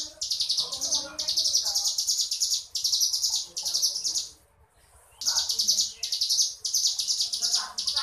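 Ciblek gunung (a prinia) singing in fast buzzing trills ('ngebrem'), high phrases about a second long with short breaks and one longer pause a little past halfway.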